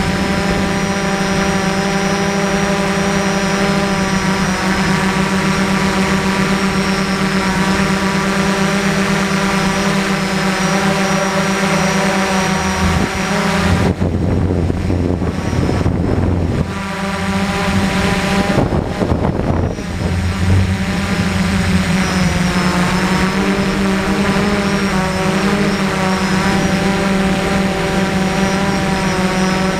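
DJI F450 quadcopter's four brushless motors and propellers whining steadily, the pitch wavering slightly with throttle. From about 14 to 20 seconds the whine breaks up into a rougher rushing noise before settling back.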